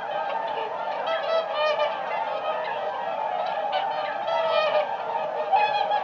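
A flock of swans calling, many overlapping calls forming a continuous chorus.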